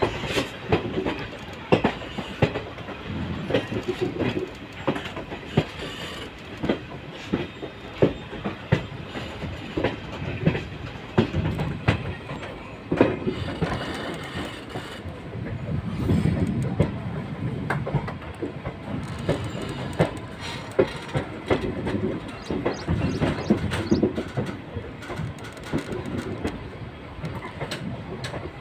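Passenger train coaches running at speed: a steady rumble from the wheels and bogies, broken by sharp clacks about once or twice a second as the wheels pass over rail joints.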